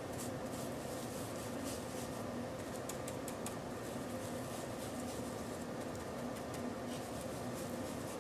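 Stencil brush dabbing and swirling paint through a stencil onto a wooden tabletop: soft brushing with faint scattered ticks, over a steady low hum.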